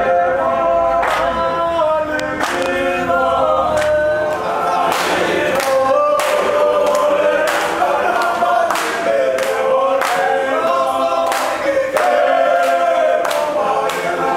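A group of young men singing together unaccompanied, several voices in harmony. Regular hand claps keep the beat.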